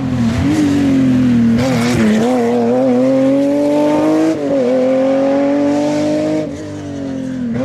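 Historic rally car's engine running hard at high revs as the car drives the stage. Its note climbs steadily, dips briefly about four and a half seconds in, climbs again, then drops and gets quieter about six and a half seconds in.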